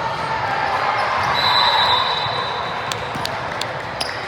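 Basketball bouncing on a hardwood gym floor, dribbled in a quick run of knocks about three a second in the second half, over a steady din of gym and crowd noise. About a second and a half in, a thin high squeal lasts about a second.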